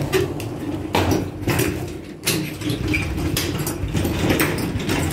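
Irregular knocks and rattles over a low steady hum, from a loaded grocery wagon and a handheld phone being jostled in an elevator.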